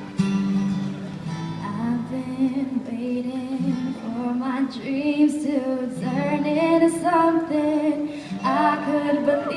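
Strummed acoustic guitar with a female voice singing over it; the singing comes in about two seconds in.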